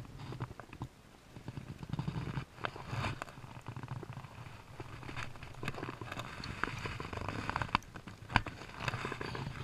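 Light water splashing with irregular small knocks, taps and rustles of handling close to the microphone, as a largemouth bass is let go back into the water.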